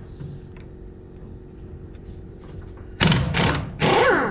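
Air impact wrench hammering in two short bursts about three seconds in, spinning off a tight lower sprocket nut that would not turn with hand wrenches.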